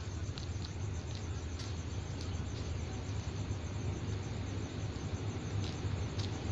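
Steady low drone of an approaching diesel locomotive still some way off, with a few faint high chirps of insects.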